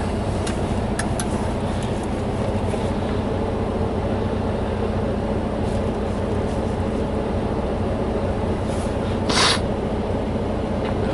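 Semi truck's diesel engine idling steadily, with a short hiss of air about nine seconds in.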